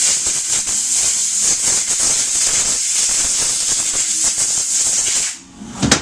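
A loud, steady hiss of pressurized air or spray, with a fine rattle in it, that cuts off sharply about five seconds in; a short sharp click follows near the end.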